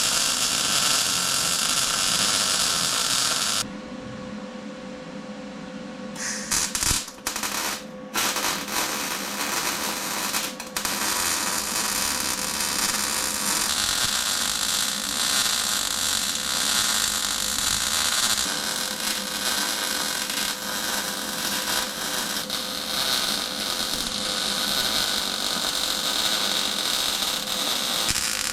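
Steady harsh hissing noise of power-tool metalwork on a steel box, dropping away briefly about four seconds in, with a few clicks before it picks up again.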